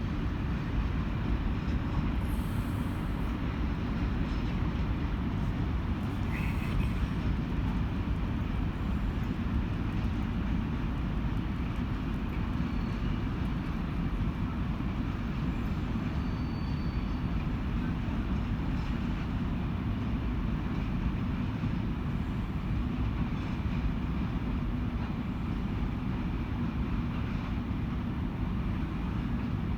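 Container freight train rolling past, a steady low rumble of the wagons on the track.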